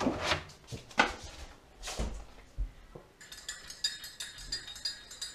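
A few kitchen knocks and thuds, the loudest about a second in. Then, from about three seconds in, a teaspoon clinks rapidly against the inside of a mug while stirring a cup of tea.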